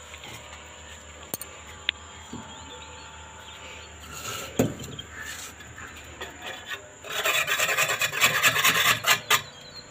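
Hard, gritty scraping on brick: a few light knocks and a dull thud, then a quick run of rasping strokes lasting a couple of seconds near the end.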